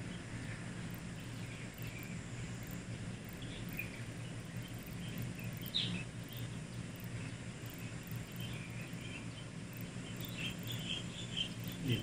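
Outdoor dawn ambience: small birds chirping now and then, with a small cluster of chirps near the end, over a steady low hum.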